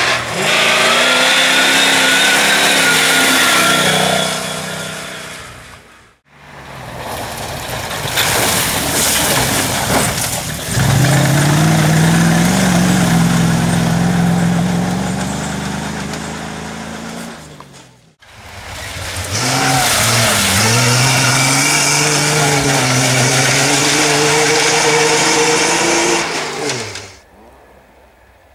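Rally cars driving flat out on a gravel stage, three separate runs, each engine revving hard with its pitch rising and falling through gear changes. The sound drops away just before the end.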